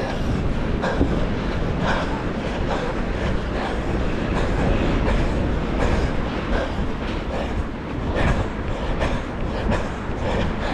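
Wind buffeting the microphone in a steady low rumble, with the runner's footfalls as a regular soft beat through it.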